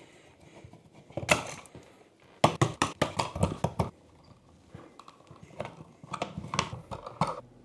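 Clicks and clatter of hand work at an electrical outlet box: a screwdriver backing out the old receptacle, and wires being handled and twisted together into a wire nut. The sound comes in short bursts, with a dense run of clicks about two and a half seconds in and scattered ticks later.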